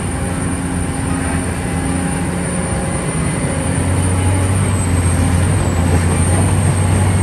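Excavator's engine running steadily with a deep hum that grows stronger about halfway through, cutting in and cutting off abruptly as an inserted vehicle sound effect.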